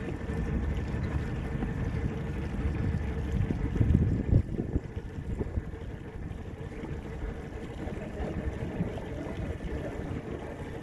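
Motorboat engine running steadily with wind buffeting the microphone and water noise, and a louder gust of wind about four seconds in.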